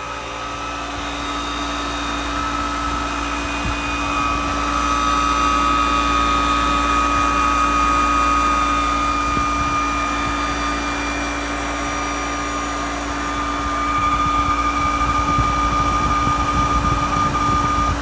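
Jandy pool pump running with a grinding noise: a steady high whine over a low rough rumble, which grows louder and rougher in the later part.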